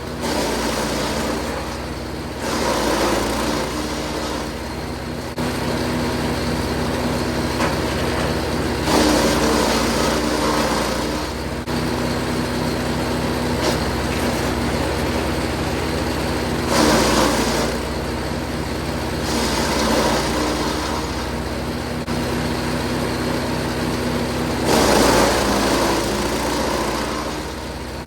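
Jansen 1500e GTS wood chipper's engine running steadily, with about five louder stretches of crunching and shredding as branches of fruit wood are fed through and chipped.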